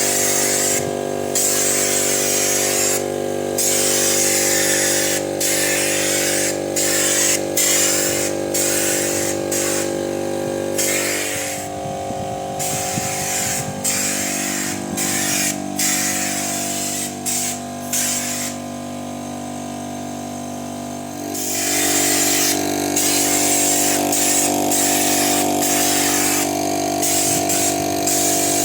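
Air compressor running with a steady hum while a compressed-air spray gun sprays oil in repeated hissing bursts, triggered on and off every second or two. The hissing stops for a few seconds about two-thirds of the way in, then starts again.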